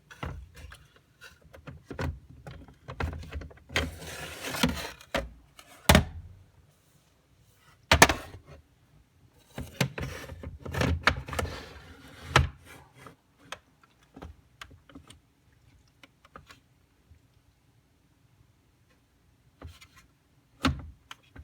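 Hands working on a pachislot slot machine: a string of knocks, clicks and scraping rustles as parts and speaker leads are handled, with several sharp knocks spread through and a quieter stretch near the end.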